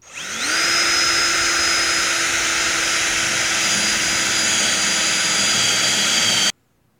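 Hilti cordless drill with a 1-inch bit spinning up and boring through a plywood-backed ceiling tile: a steady motor whine with cutting noise that cuts off suddenly near the end.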